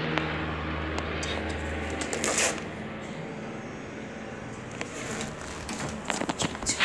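A steady low hum that stops about two seconds in, then a tablet's microphone rubbing against clothing as it is carried, with scattered clicks and knocks.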